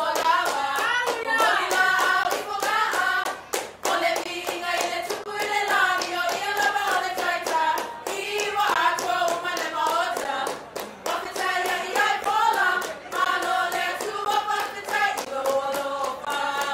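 Music for a Samoan siva dance: a group singing together over quick, steady hand clapping, the claps falling several times a second.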